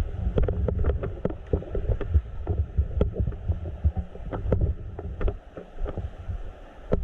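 Low, uneven rumble of wind and handling on a body-worn camera microphone, broken by scattered sharp clicks and snaps at an irregular pace.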